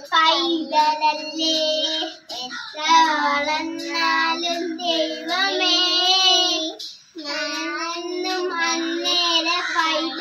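Two young children, a girl and a boy, singing a Malayalam song together, loud and steady, in held sung phrases with two short pauses for breath.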